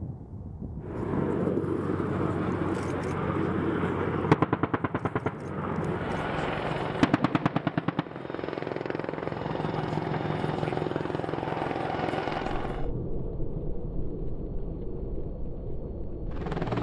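AH-64 Apache attack helicopter flying, with two bursts of rapid cannon fire from its 30 mm M230 chain gun, about ten rounds a second. Each burst lasts about a second, the two a few seconds apart. The higher part of the noise drops away a few seconds before the end.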